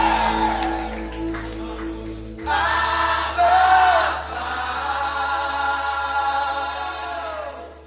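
Christian worship song: voices singing long held notes over a sustained instrumental backing with steady bass. A new sung phrase comes in about two and a half seconds in, and the music thins out at the very end.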